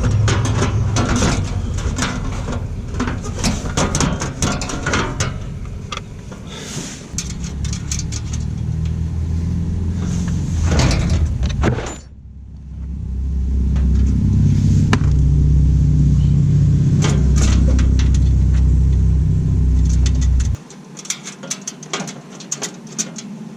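Scattered sharp metal clicks and knocks of hand tools and bolt hardware on a car's underbody panels, over a loud low rumble that cuts off suddenly about 20 seconds in.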